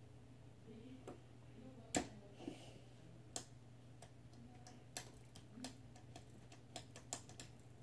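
Faint handling noise: scattered small clicks and taps at an uneven pace, the loudest about two seconds in, over a low steady hum.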